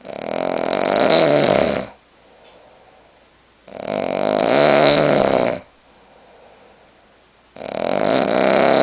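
A person snoring loudly: three long snores of about two seconds each, one every four seconds or so, with quiet gaps between.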